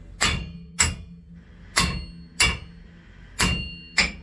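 Hammer blows on a steel chisel as the propeller-shaft coupling is chiselled, six blows in pairs each ending in a brief metallic ring, over a low steady hum.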